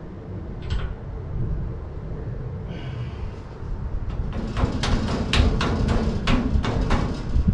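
Metal clicks and clinks of a steel shackle plate being worked by hand onto a Model A Ford front spring shackle, where it doesn't want to fit: one click about a second in, then a quick run of clinks in the second half, over a low rumble.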